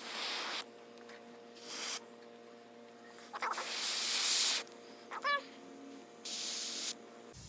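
Airbrush spraying paint in four separate hisses, each from about half a second to just over a second long, the third the longest and loudest.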